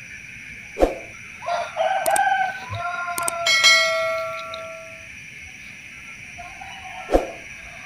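A rooster crowing once: a long crow that ends on a held note and fades about five seconds in. A steady high-pitched hiss runs underneath, with a short knock near the start and another near the end.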